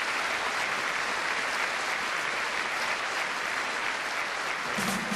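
A large audience applauding steadily. Music starts just at the very end.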